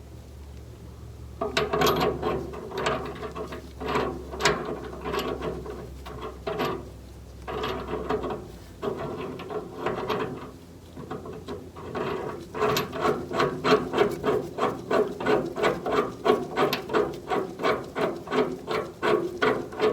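Hand ratchet wrench clicking in repeated strokes as it runs a nut onto the drag link-to-idler arm bolt, uneven at first, then a steady quick series of strokes from about twelve seconds in.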